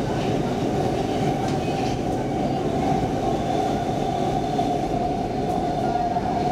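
Stockholm Metro C14 subway car running through a tunnel, heard from inside the car: a steady loud rumble of wheels on rail with a constant whine held at one pitch.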